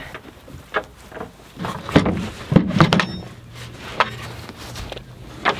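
Irregular knocks and thumps from a wooden chicken brooder being carried and set down, about half a dozen in all, the loudest about two seconds in.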